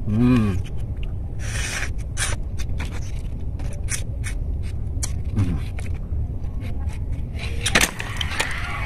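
Wet chewing and lip-smacking of fresh pomelo pulp, many short mouth clicks, with a short hummed "mm" just after the start. A steady low rumble runs underneath.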